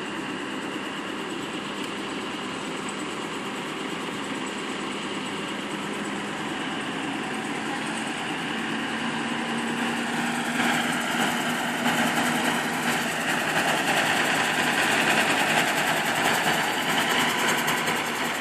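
Diesel passenger train's engine running as the train crosses the road slowly at close range, with a steady drone. About ten seconds in it grows louder and rougher as the engine car and coaches roll past.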